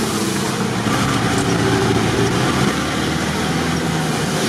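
Off-road 4x4's engine running steadily while driving, heard from inside the cab, over a steady hiss of tyres on a wet dirt road.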